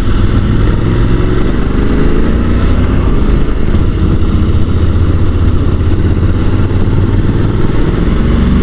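Honda NC750 parallel-twin motorcycle engine running under way, its note climbing slowly in places as the bike pulls along, with a steady rush of riding wind over it.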